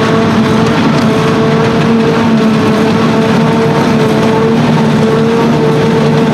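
Self-propelled forage harvester running steadily at work while chopping grass for silage: a loud, even machine drone with a steady whine running through it.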